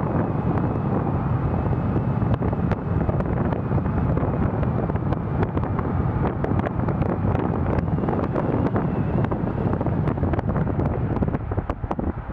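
Wind buffeting the microphone over the steady rumble of a vehicle driving along a road, with constant crackling gusts; the noise drops off sharply near the end.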